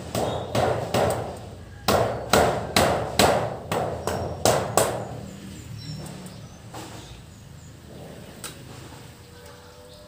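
Hammer nailing a flat metal sheet onto a wooden wall frame: about a dozen sharp, ringing blows in the first five seconds, then a few lighter, spaced taps.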